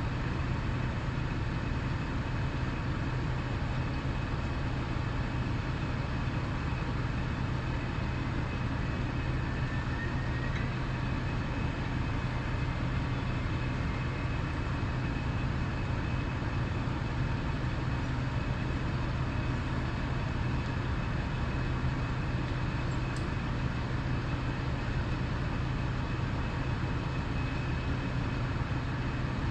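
Fire apparatus diesel engines running steadily at a structure fire: a constant low hum under an even rushing noise, unchanging throughout.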